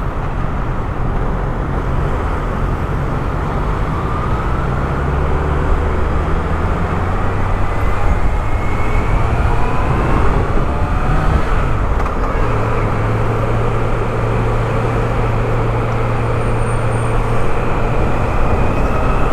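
Motorcycle riding through city traffic: its engine running steadily under road and traffic noise, with a couple of rising engine whines as it speeds up.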